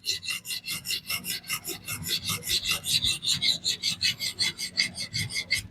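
Diamond sharpening plate on a fixed-angle sharpener rasping along a DC53 steel knife edge in quick, even back-and-forth strokes, many per second, under only the weight of the stone and its holder, removing a little extra steel to refine the scratch pattern.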